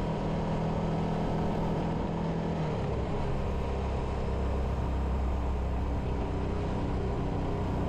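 Bajaj Avenger motorcycle running along the road: a steady low engine drone over a rushing haze of wind and road noise. The engine note shifts about three seconds in.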